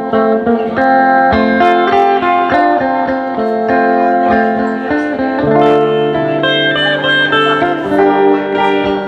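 Instrumental break on guitars: a Stratocaster-style electric guitar plays a lead melody of sustained single notes over steady acoustic guitar strumming.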